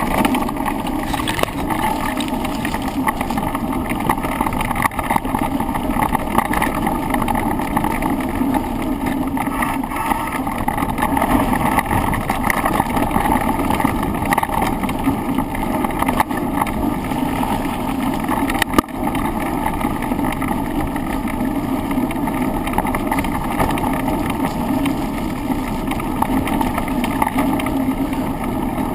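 Steady rumble of wind and riding vibration picked up by a handlebar-mounted camera during a run downhill, with one sharp knock a little past two-thirds of the way through.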